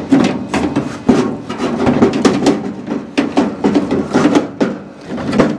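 Irregular knocking and clattering, several sharp knocks a second, as a car door's window glass and regulator are worked into place by hand.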